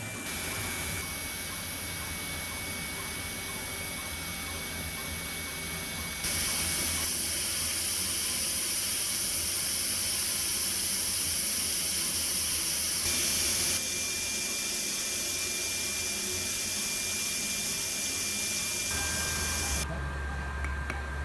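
Steady background hiss with a faint steady high tone and a low hum, typical of operating-room equipment noise. The hiss jumps abruptly in loudness and brightness several times, every few seconds.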